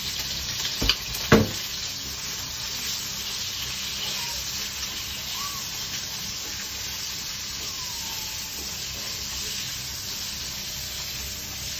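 Bacon frying in olive oil in a pan, a steady sizzle. Two sharp knocks about a second in.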